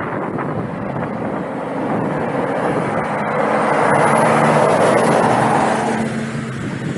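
Road traffic passing close by on a dual carriageway, a lorry's engine hum and tyre noise swelling to loudest about four to five seconds in as it goes past, then easing off.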